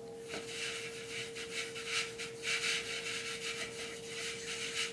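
Floured hands rubbing together as they roll a ball of cookie dough between the palms: an irregular series of dry, swishing rubbing strokes.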